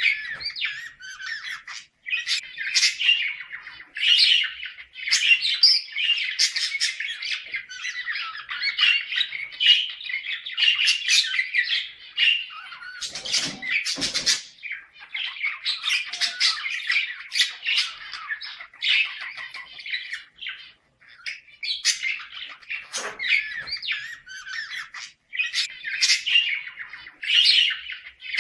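Budgerigars chattering without a break, a fast, warbling mix of squawks and chirps with only brief pauses. This is the excited calling of budgies in breeding condition.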